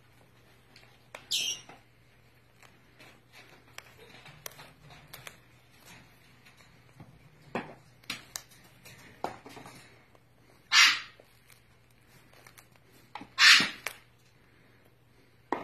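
Umbrella cockatoo's beak clicking and crunching into raw pumpkin flesh, in small irregular crackles. Three short, loud, harsh noises stand out, one about a second in and two more near the end.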